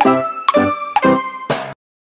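Upbeat intro jingle of chiming, pitched notes, ending in a short hiss-like swoosh and then cutting off to silence about three-quarters of the way through.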